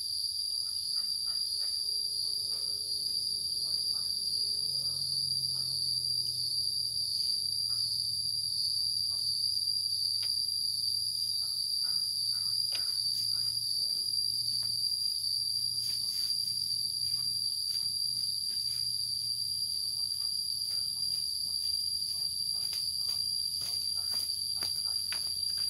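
Steady high-pitched chorus of insects, with faint small knocks scattered through it.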